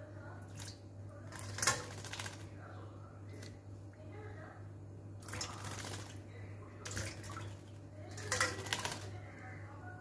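A myna bathing in a steel bowl of water, splashing in short bursts about half a dozen times, loudest near the start and near the end, over a steady low hum.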